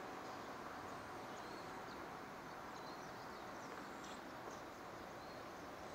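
Faint outdoor ambience: a steady low hiss with a few short, faint high chirps.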